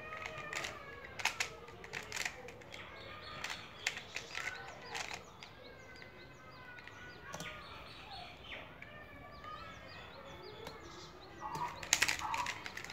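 Plastic clicks and clacks of a Square-1 puzzle's layers being turned and sliced in a speed solve, coming in irregular flurries with a louder run near the end. Birds chirp in the background.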